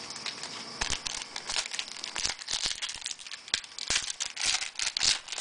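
Foil trading-card pack wrapper crinkling and tearing as it is opened and handled, a dense run of irregular crackles starting about a second in.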